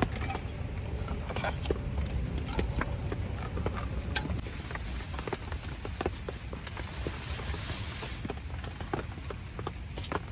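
Wood campfire crackling with scattered small pops and one sharp pop about four seconds in.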